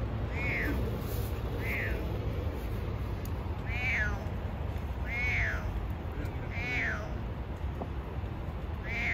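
Stray orange tabby cat meowing about six times, short calls that fall in pitch, unsettled by a dog close by. A steady low rumble lies underneath.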